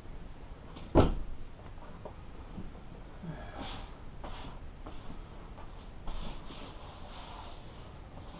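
A single thump about a second in, then hands sweeping and smoothing a large vinyl upholstery sheet over a padded board, a run of short swishes.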